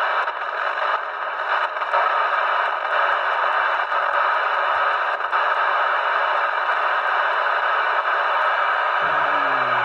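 Moonraker Minor 40-channel UK FM CB radio hissing steadily from its speaker with the squelch open: receiver static on empty channels, nobody transmitting. A few brief breaks in the hiss in the first couple of seconds as the channel is stepped.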